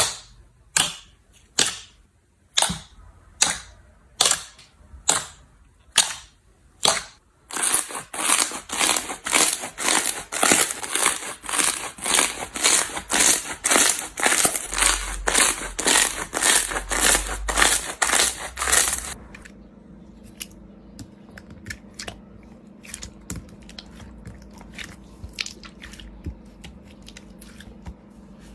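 Slime being pressed and worked by hand, giving sharp pops at about one a second, then a faster run of crackling pops. About two-thirds of the way in it turns to softer, scattered clicking over a faint steady hum.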